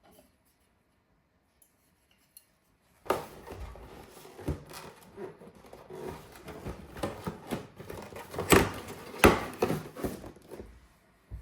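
Near silence, then about three seconds in a busy run of rustling, clicks and light knocks as small objects are handled. Two louder knocks come near the end, and it stops shortly before the end.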